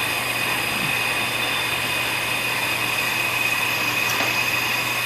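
Steady machine drone: a low hum and a high whine with an even noisy hiss, unchanging throughout.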